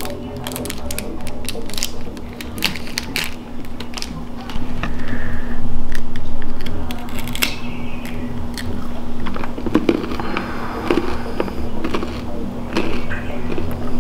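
Plastic candy wrapper crinkling and crackling in sharp little clicks as it is slowly pulled open, then a pé de moleque peanut brittle being bitten and crunched. A steady low hum runs underneath.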